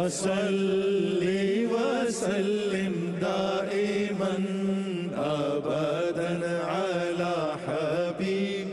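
Background vocal music: a chanted, wavering melody over a steady low drone.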